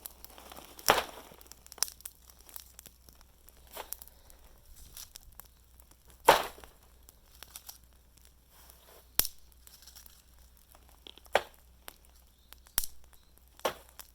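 Fallen-leaf bonfire crackling, with scattered sharp pops and snaps at uneven intervals, several of them louder than the rest.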